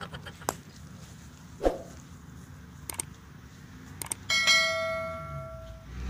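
A few short sharp clicks and a louder knock, then, about four seconds in, a single bell-like ding that rings out and fades over about a second and a half.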